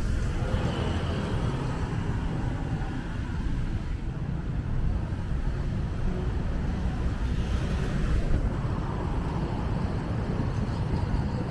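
Road traffic on a city street: the steady low noise of passing vehicles' engines and tyres, swelling briefly about eight seconds in.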